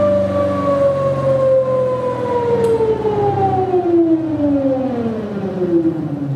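Electric motor-generator test rig whining as it spins down. The pitch falls steadily and then drops faster in the last couple of seconds, over a steady low hum.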